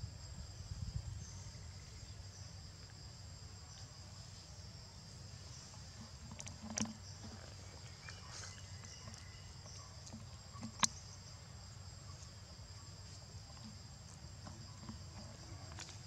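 Forest insects droning steadily in a high, even buzz. Two sharp clicks cut through it, one about 7 seconds in and a louder one about 11 seconds in.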